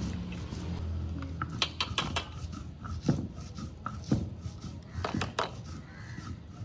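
A hand grinding stone scrapes on a stone slab at first. Then a steel tumbler is knocked several times against a steel plate to shake out ground spice paste, giving sharp metallic clinks.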